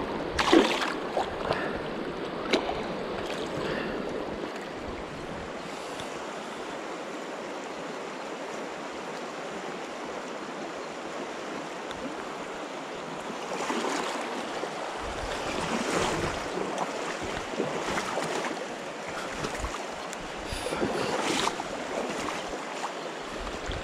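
River current flowing steadily, with splashing in the first few seconds as a chub is let go back into the water by hand. Wind buffets the microphone in louder gusts later on.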